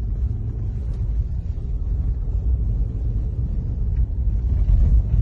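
Steady low rumble of a car on the move, heard from inside its cabin, getting a little louder near the end.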